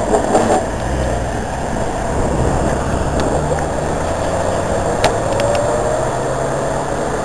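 Car engine running as a black estate car pulls away and drives off through city traffic, with a couple of sharp clicks about five seconds in.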